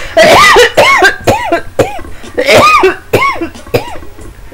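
A woman laughing hard at her own joke: a run of short, high-pitched, squeaky laughs, about two a second, with a brief break in the middle.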